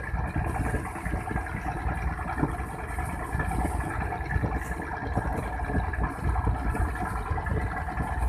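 A motor running steadily, with a constant low rumbling noise under it.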